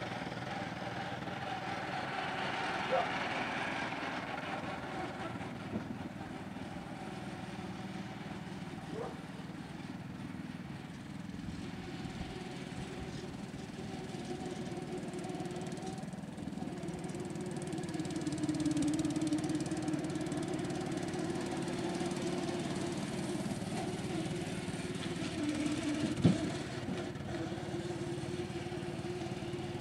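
Small engine of a miniature antique-style wagon running steadily as it drives along, a little louder past the middle. One sharp knock near the end.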